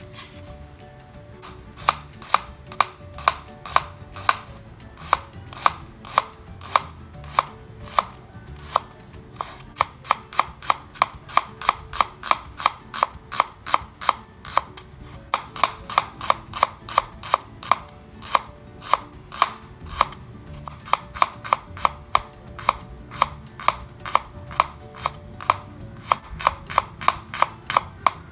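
Kitchen knife slicing shallots on a wooden cutting board: a steady run of sharp knocks, about three to four a second, starting about two seconds in, with a couple of brief pauses.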